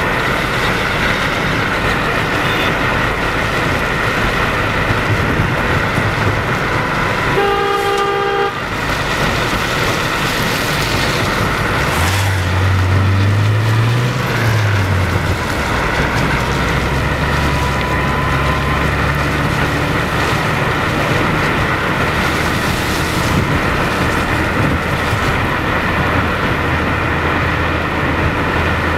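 Steady road noise of a moving car on a slushy road. A vehicle horn honks once, for about a second, around seven and a half seconds in. A low engine hum rises and falls from about twelve seconds in, then holds steady.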